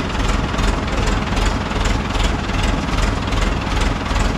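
Heavy vehicle engine running with a low rumble and a regular pulse of about two or three beats a second.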